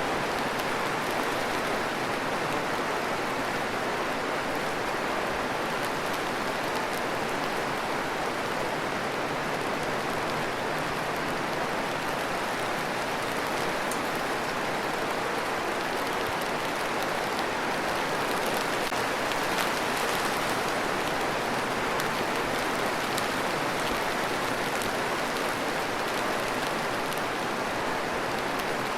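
Steady rain falling, a dense even hiss with faint scattered drop ticks.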